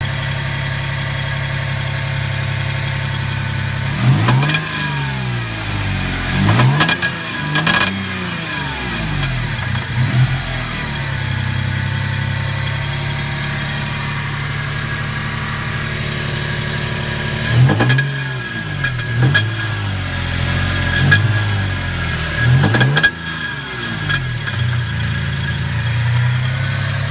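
Toyota Tacoma 3.4-litre V6 (5VZ-FE) idling steadily, blipped several times in two bursts of quick revs that fall back to idle. The owner suspects it may have an engine knock.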